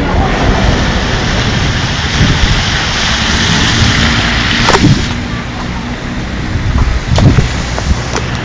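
Loud steady rushing outdoor noise with a low rumble, broken by sharp knocks from the handheld phone being moved, about four and a half and seven seconds in.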